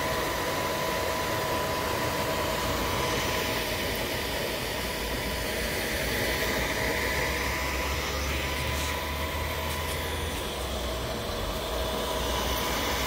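Superconductor Technologies Hybrid 98 cryocooler running, a steady low hum with a faint steady whine and the airy noise of its cooling fan.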